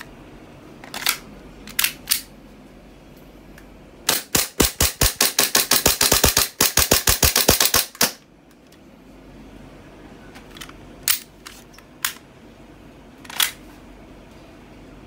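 Poseidon P17 gas blowback airsoft pistol firing a rapid string of about two dozen shots in some four seconds, each a sharp crack of the gas-driven slide cycling, with a brief break partway through. A few separate single clicks come before and after the string.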